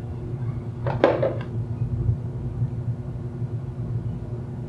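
A steady low hum, with one short knock about a second in as a plastic measuring jug of juice is set down on a wooden table.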